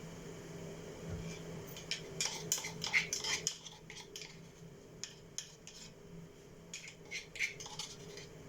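Kitchen utensils and dishes clinking and clattering: a quick run of clinks, then a few single clinks. A steady low hum stops partway through.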